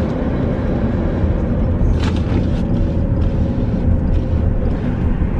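Car heard from inside the cabin: a steady low rumble of engine and road noise, with a brief click about two seconds in.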